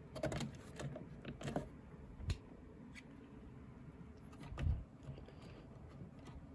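Small clicks and rustles of hands handling wiring and pressing a connector plug into a data-counter relay board. There is a sharp click a little past two seconds in, and a dull knock, the loudest sound, about four and a half seconds in.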